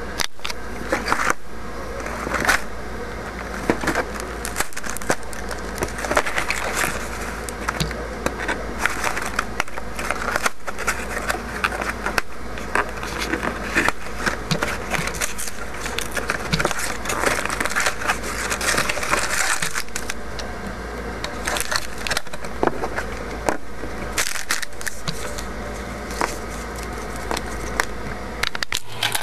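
Handling and opening of a cardboard LEGO box and plastic parts bags: continuous crinkling and rustling with many small sharp clicks, over a steady low hum.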